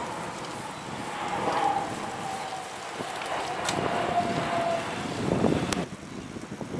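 Wind buffeting the microphone of a camera on a moving bicycle, over the rolling of tyres on an asphalt path. A thin whine comes and goes in the middle, and the noise changes abruptly near the end.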